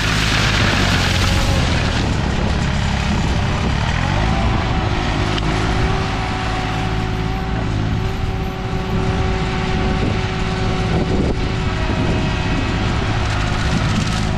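Green Climber LV600 remote-controlled slope mower running steadily, its Kohler engine and flail mulching head turning. For the first couple of seconds there is a burst of hissing, crackling noise on top as the flail chews into the olive branches.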